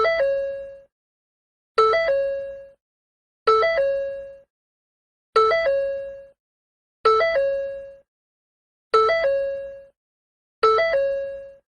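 Ford car door chime repeating about every two seconds, seven times. Each chime is a quick two-note rise that settles into one held tone and fades out within a second.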